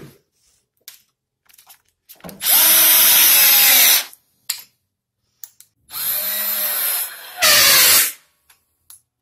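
WORX cordless drill-driver running in three bursts, driving pocket-hole screws at an angle into 18 mm melamine board; the first and last bursts are the loudest. A few small clicks come between them.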